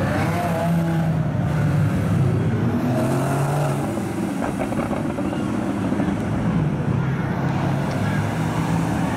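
Sports cars driving past one after another, among them a Porsche Boxster and a Mercedes-AMG C63 with its V8. Engines run steadily with brief rises in pitch as they accelerate away.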